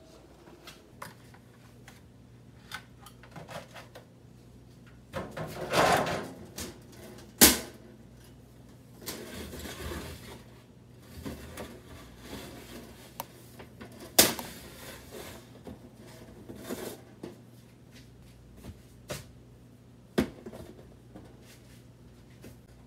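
Handling noise of an IKEA SOCKER mini greenhouse, its steel frame and clear plastic panels clacking and knocking as the roof panel is opened and plant pots are moved in and out, with rustling between. Three sharp clacks stand out, several seconds apart.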